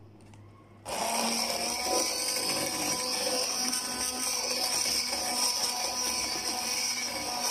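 Hand-held immersion blender running steadily with a motor whine, puréeing a butter chicken gravy in the pan; it starts about a second in.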